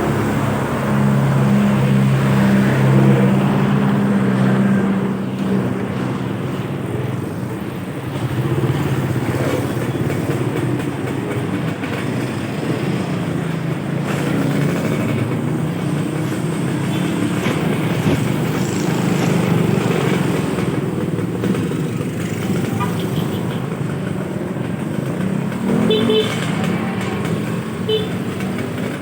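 Street traffic: a motor vehicle's engine drone, strongest in the first five seconds, over steady road noise, with a couple of brief high-pitched sounds near the end.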